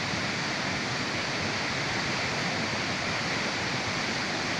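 Flooded river rushing past, a steady, even roar of fast turbulent water: the river is in spate and overflowing its banks.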